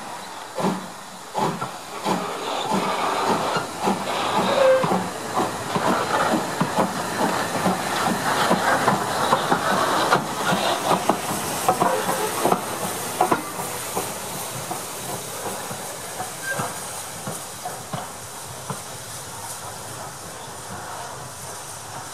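BR Standard Class 4 2-6-0 steam locomotive pulling away from a standstill. Its exhaust beats start slow and quicken over the cylinder drain cocks' hiss. It is loudest as it passes close, about twelve seconds in, then fades as it draws away.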